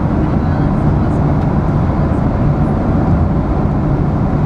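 Airliner passenger cabin noise in flight: a steady, even rumble and hiss with most of its weight low down.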